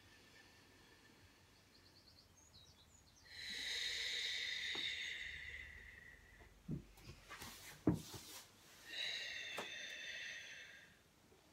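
Two long audible exhales with a slight whistling tone, a few seconds apart, each fading out. Between them, a brief rustle and a few soft knocks of the body moving on the rug.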